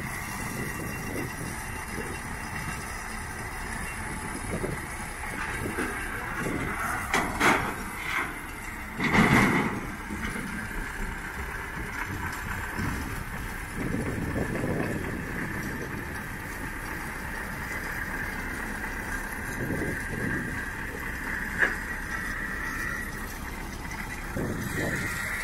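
Belarus farm tractor's diesel engine running as it drives down the trailer ramps and across gravel, with a louder clunk about nine seconds in.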